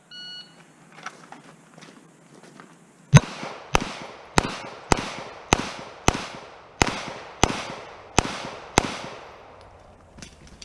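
A short electronic shot-timer beep, then about three seconds later ten pistol shots fired at a steady pace, roughly one every half second or so, each with a brief echo.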